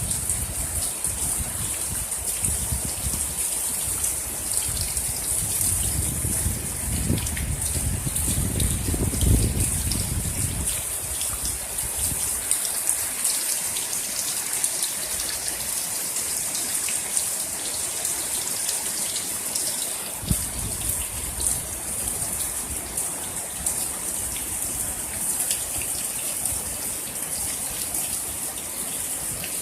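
Heavy rain pouring steadily, a dense hiss of drops pattering on surfaces. A low rumble comes and goes underneath, strongest through the first third and again in the last third.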